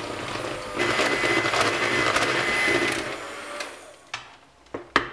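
Electric hand mixer running with its beaters in cake batter, a steady motor whir that dies away about three and a half seconds in. A few sharp knocks follow near the end.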